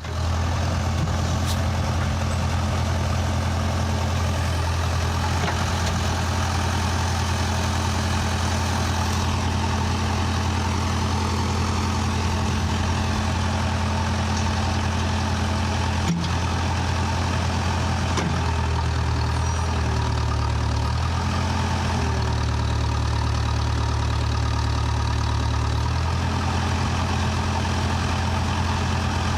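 Backhoe's diesel engine running steadily, its low note shifting in pitch for several seconds past the middle before settling back, with a single click about halfway through.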